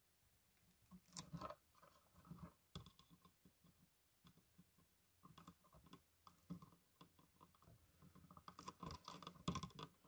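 Faint, scattered clicks and scrapes of needle-nose pliers gripping and bending stripped copper wire ends into hooks, a little busier near the end.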